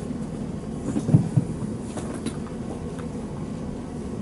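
Steady low rumble of room background noise, with a couple of soft low thumps about a second in and a few faint clicks.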